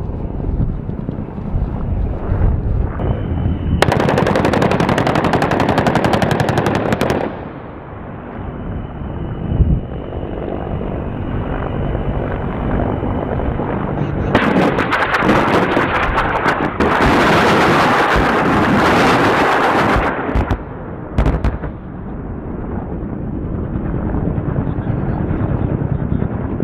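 Rapid automatic gunfire in long bursts: one about three seconds long a few seconds in, a longer one of about six seconds past the middle, and a brief burst shortly after. Between the bursts runs a lower, steady rumble.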